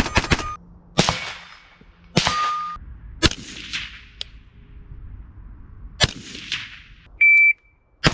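Shots from a 22 Magnum (22 WMR) AR-15 rifle: five sharp reports about a second apart, with a gap of nearly three seconds before the last, and a short ring after two of them. Near the end, a short high electronic beep.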